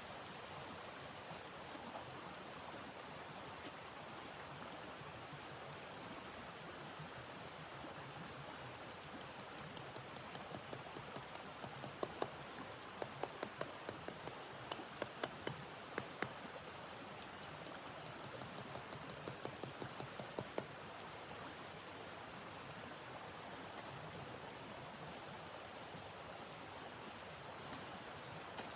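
Wood fire crackling, with a run of sharp, irregular pops in the middle, over a steady rushing noise of wind.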